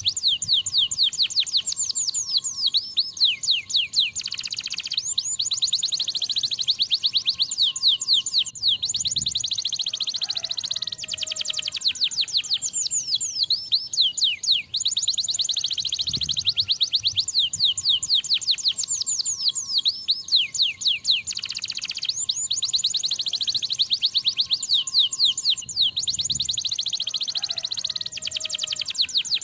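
Domestic canary in full song: fast, high-pitched trills of rapidly repeated downward-sweeping notes, one roll running into the next with only short breaks every few seconds.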